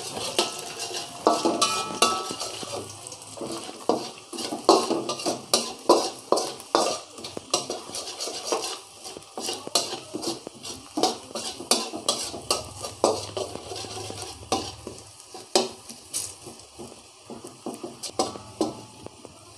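Chopped garlic sizzling in hot oil in a steel wok, with a metal utensil scraping and knocking against the pan in many irregular strokes over a steady hiss. The garlic is being sautéed until golden and fragrant.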